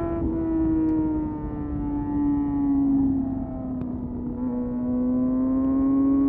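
Kawasaki ZX-6R's 636 cc inline-four engine running at steady high revs. Its pitch sinks slowly over about four seconds, then rises again.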